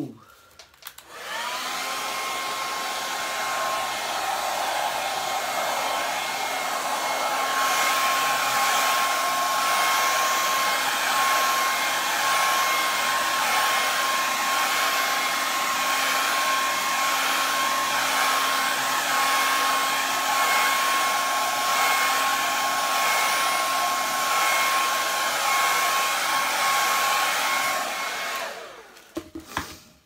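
Hair dryer blowing poured acrylic paint across a canvas: a steady rush of air with a constant whine on top. It switches on about a second in and cuts off near the end.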